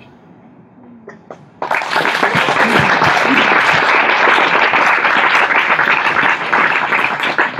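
An audience breaks into applause after a hush of about a second and a half; the clapping starts suddenly and then goes on steadily.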